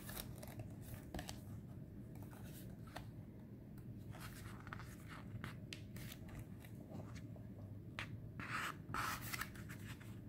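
Pages of a paperback book being turned and handled: faint paper rustles and small ticks, with a few louder rustles about eight seconds in.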